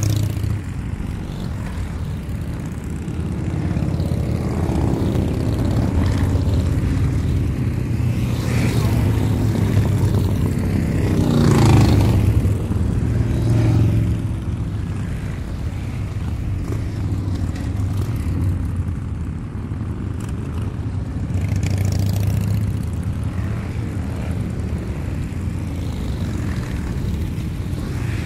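Engine running with a steady low rumble that swells to its loudest about twelve seconds in, its pitch rising and then dropping like a vehicle going past, before settling back to a steady drone.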